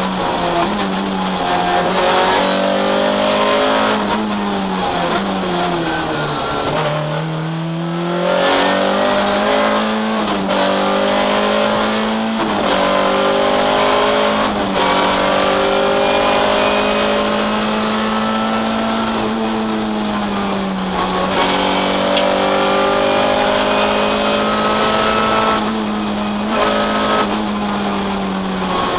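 Škoda Felicia Kit Car 1600 rally car's four-cylinder engine heard from inside the cabin, running hard at high revs under full throttle. The pitch dips briefly at gear changes, with one long drop in revs about seven seconds in before it climbs again.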